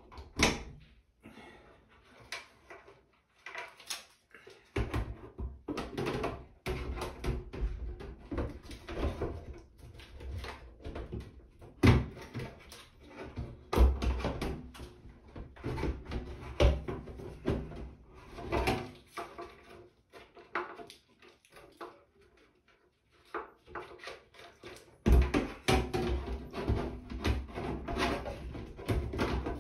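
Plastic blower unit of a NuTone bathroom exhaust fan being worked by hand into its sheet-metal ceiling housing: irregular knocks, clicks and rattles of plastic against metal, with rubbing handling noise.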